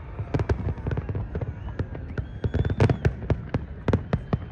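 Aerial fireworks bursting in quick, irregular succession: many sharp bangs and crackles, the loudest cluster about three seconds in.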